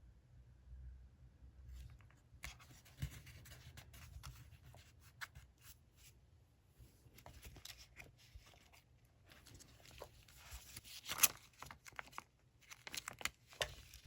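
Faint paper handling on a desk: irregular rustles, with small taps and clicks, starting about two seconds in and busiest about eleven seconds in.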